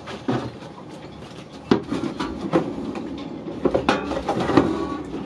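Knocks and clatter of gear being picked up, moved and set down, in irregular bursts with the sharpest about two seconds in and again near four seconds in. Some knocks ring briefly, as hard items bump together.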